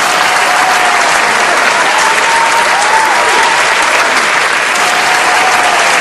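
Loud, steady applause from a crowd, with a faint thin tone wavering up and down above it.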